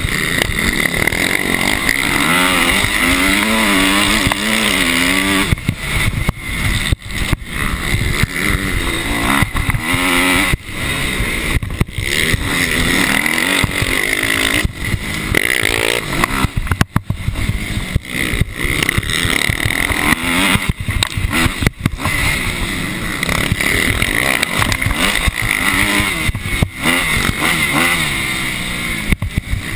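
Motocross dirt bike engine at racing speed, its revs rising and falling over and over as the throttle opens and closes through the corners. The sound drops out briefly several times.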